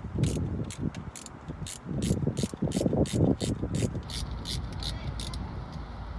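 A ratchet wrench clicking in short, irregular strokes, with clunks of metal parts being handled. The clunking is heaviest about two to three seconds in.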